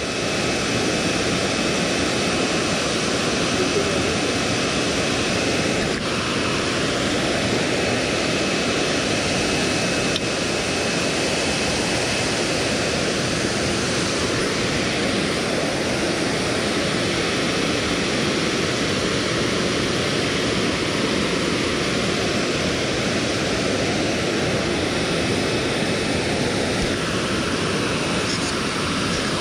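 Steady rush of water pouring over a dam spillway, an even noise that holds without change.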